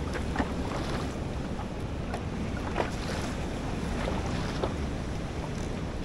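Wind buffeting the microphone over choppy sea, a steady low rumble, with a few short sharp knocks spaced irregularly through it.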